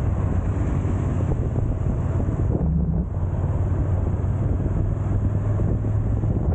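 Wind buffeting the microphone over the steady drone of a motorcycle engine at riding speed, with a brief dip in the sound about three seconds in.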